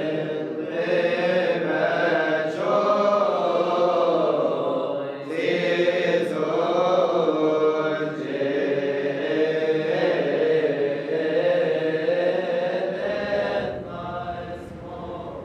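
Religious chanting: voices holding a slow, wavering melodic line without break, a little softer near the end.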